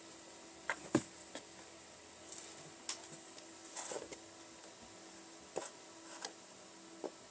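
Kittens playing on carpet with a fluffy rope toy: irregular soft thumps and scuffles of paws, with one sharper knock about a second in, over a faint steady hum.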